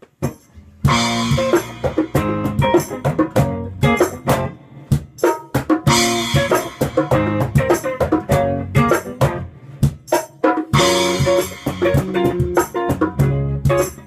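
Rock-Latin-pop band playing an instrumental passage on electric guitar, electric bass, and cajon with cymbals. After a few sparse guitar notes the full band comes in about a second in, with a cymbal crash roughly every five seconds.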